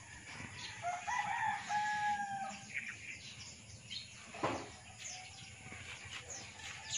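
A rooster crows about a second in, a crow of about a second and a half in several parts, while small birds chirp. A single sharp knock comes about halfway through.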